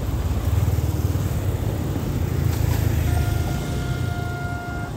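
Low, steady rumble of a vehicle going by, with a horn sounding one steady note about three seconds in, held for nearly two seconds.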